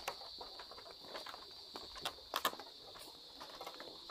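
Footsteps on wooden planks: a few light knocks about two seconds in, over a faint steady high-pitched buzz.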